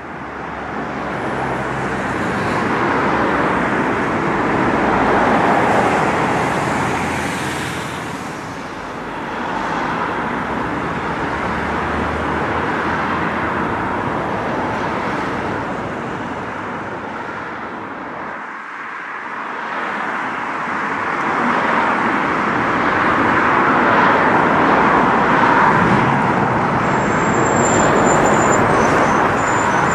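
Road traffic on a nearby road: a steady noise of passing cars that swells and fades, with a brief lull about two-thirds of the way through.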